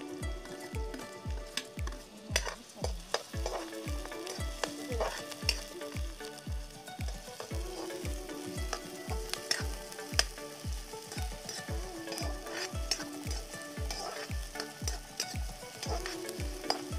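Chopped onions sizzling and frying in hot oil in a kadhai, stirred with a steel ladle that clinks now and then against the pan. A steady low beat of background music runs underneath, about two thumps a second.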